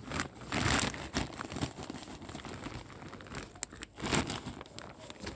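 Rustling and crinkling of a plastic sack and the half-decomposed dry leaves inside it as a hand digs down through them, in irregular bursts that are loudest about half a second in and again about four seconds in.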